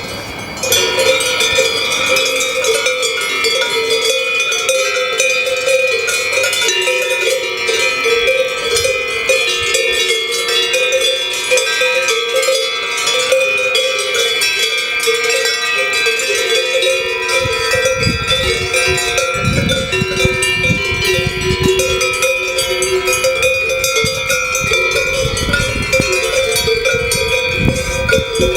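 A herd's cowbells clanking and ringing continuously, several bells at different pitches overlapping. A low rumble joins in after about seventeen seconds.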